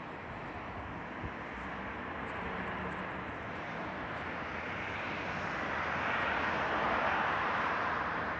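A passing vehicle's rushing noise swelling over several seconds toward the end, over a steady outdoor street background.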